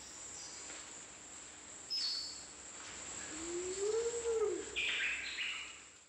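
Tropical forest ambience: a steady high insect drone, a short bird chirp about two seconds in, a low bird call that rises and falls in pitch in the middle, and more chirps near the end.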